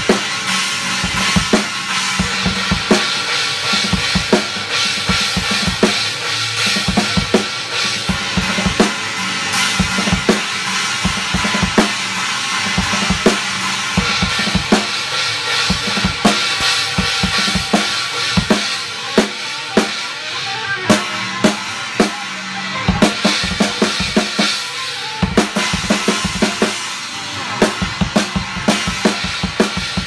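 Acoustic drum kit played in a steady run of grooves and fills: bass drum and snare hits under a constant wash from 19-inch china cymbals, a Sabian Paragon Chinese and a Zildjian K Custom Hybrid China.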